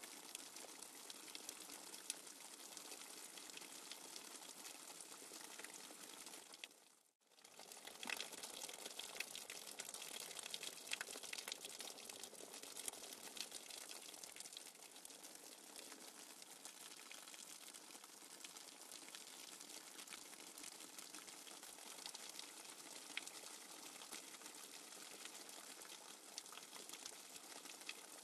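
Faint nature-sounds background track of running water: a steady fine hiss with small crackling splashes, which fades out briefly about seven seconds in and then returns.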